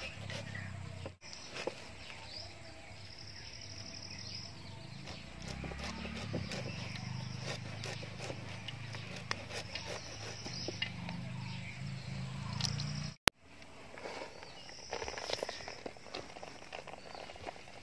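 Insects buzzing in repeated stretches of a second or so, over small scrapes and clicks of a knife working pieces of jackfruit by hand. A single sharp click about thirteen seconds in, where the sound briefly drops out.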